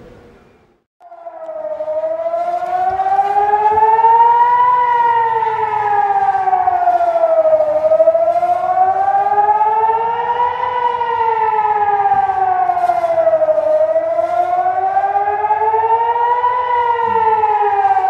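Civil defense siren wailing, its pitch rising and falling slowly about every six seconds; it comes in about a second in, after a fading sound dies away. An air-raid warning of incoming rockets.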